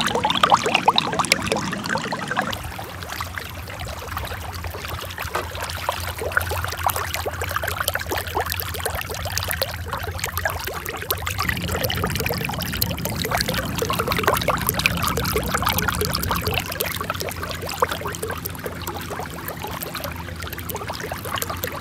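Water splashing and trickling without a break, like water being poured or churned at the surface, over a steady low hum.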